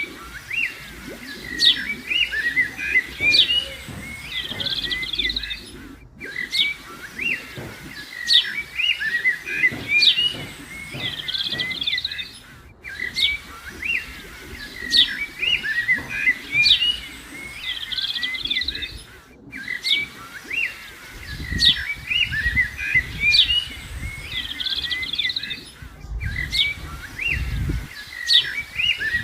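Several birds chirping and calling. The same few seconds of birdsong repeat about every six and a half seconds, each time after a brief break, and a low rumble comes in after about twenty seconds.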